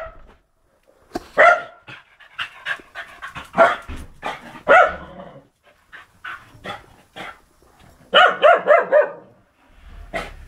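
A dog barking: single sharp barks spaced out, then a quick volley of about six barks near the end.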